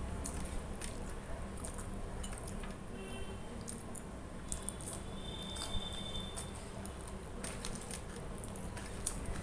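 Close-up eating sounds: chewing mouthfuls of rice and crunching a slice of raw onion, with fingers scraping the rice together on a steel plate. Scattered small clicks run through it over a steady low hum.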